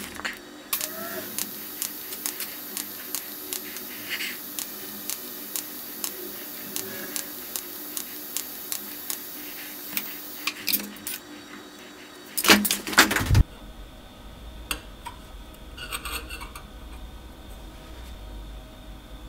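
TIG spot welding on thin chrome-nickel stainless steel sheet: a steady hiss with a short sharp tick for each spot pulse, about two a second, until about ten seconds in. About twelve and a half seconds in, a brief loud clatter, then only a low hum.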